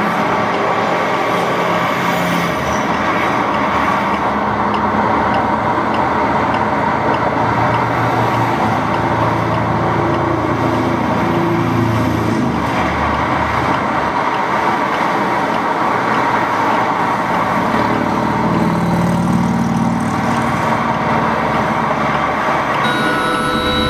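Recorded heavy freeway traffic, a dense steady roar of trucks and cars, played back over studio loudspeakers. Through it a LIFEPAK 15 CPR metronome beeps faintly at a regular pace. Near the end the traffic gives way to a different steady engine noise.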